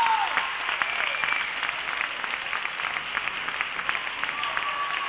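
Audience applauding steadily, with a few voices calling out over the clapping near the start, about a second in, and near the end.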